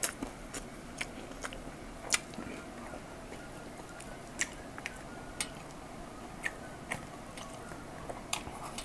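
A person chewing a mouthful of biryani rice, with about a dozen wet mouth smacks and clicks at irregular intervals.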